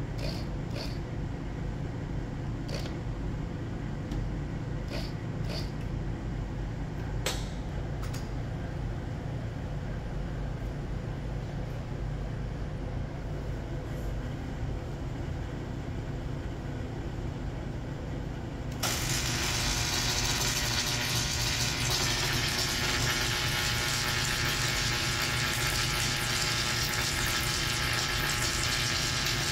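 A steady low hum with a few light clicks and taps. About two-thirds of the way in, a loud steady hiss and crackle sets in abruptly and holds: the submerged arc burning under its flux as the SAW tractor welds.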